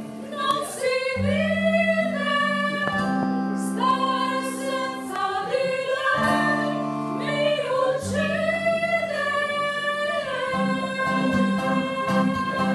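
Small mixed vocal group singing long held notes in harmony over an acoustic guitar.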